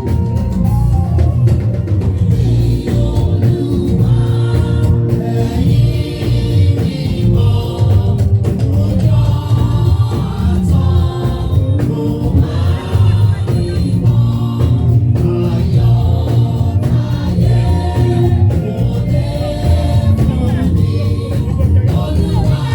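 Gospel music with group singing over a heavy bass accompaniment.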